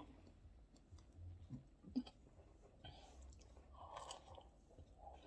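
Faint chewing and mouth sounds, with a few small clicks.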